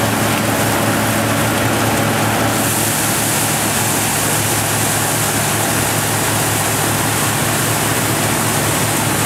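Valasumani multicrop thresher running steadily at working speed while threshing: a steady low hum under a loud, even rushing noise.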